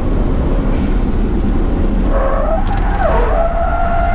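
Car being driven hard on a track, heard from inside the cabin, engine running under load. From about two seconds in, the tyres squeal in several pitched tones that dip and rise again as the car slides.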